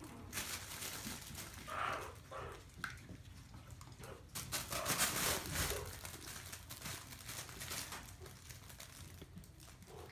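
A collapsible fabric pet play tunnel rustling and crinkling as Maltese puppies push into and crawl through it, loudest about halfway through. A few short puppy vocal sounds come in near the start.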